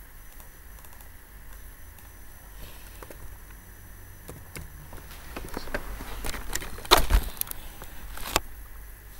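Clicks and knocks from a computer keyboard and mouse as a text label is typed and confirmed, over a faint steady hiss with a thin high whine. The clicks thicken into a cluster about five seconds in, and the loudest knock comes about seven seconds in.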